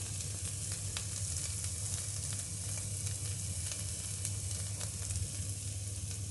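Paneer cubes frying in a thin film of oil on a flat nonstick pan: a steady sizzle with scattered small crackles, over a steady low hum.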